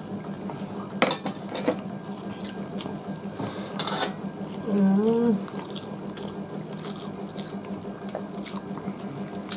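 Wet eating sounds of hands mixing rice and curry on steel plates and of chewing, over a steady hiss, with a few light clicks of fingers on the metal plates. A brief 'mm' from a voice about five seconds in.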